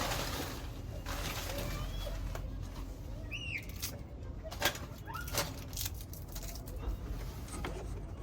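Rustling and handling of packaging, with several sharp clicks, while a few birds chirp in the background.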